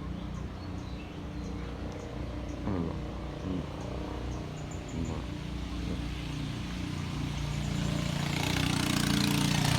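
A small motorcycle engine running steadily, growing louder over the last couple of seconds.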